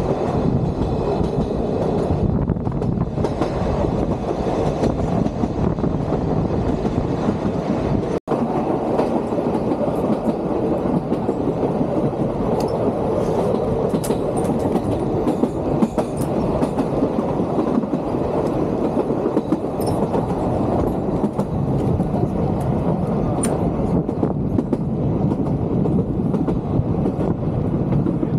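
Vintage electric train of the Sóller railway running along the track: a steady rumble of wheels on rails with scattered clicks. The sound cuts out for a moment about eight seconds in.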